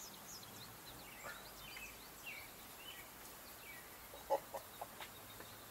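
Small birds chirping in the background, a string of short high calls, with a sharp clack about four seconds in and a few lighter clicks after it.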